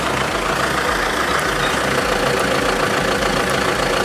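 Heavy vehicle's engine running steadily.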